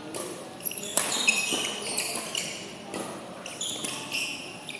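Badminton players' court shoes squeaking on the indoor court floor in short high-pitched chirps, with a couple of sharp racket hits on the shuttlecock about a second in.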